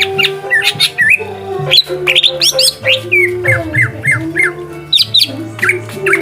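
Greater green leafbird (cucak hijau) singing a fast run of sharp, sweeping chirps and squawks, with background music underneath.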